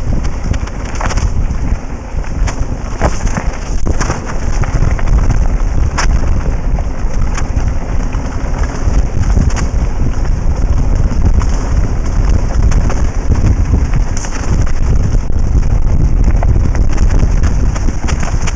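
Wind buffeting the microphone of a helmet-mounted camera on a bike ridden fast down a dry gravel track. Under it run the crunch and rattle of the tyres and bike, with scattered sharp clicks and knocks from stones and the frame.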